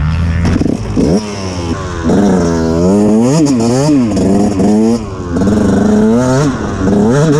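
KTM two-stroke motocross bike engine revving hard and unevenly while ridden through deep sand, its pitch rising and falling with each burst of throttle. It drops back briefly about a second in and again about five seconds in.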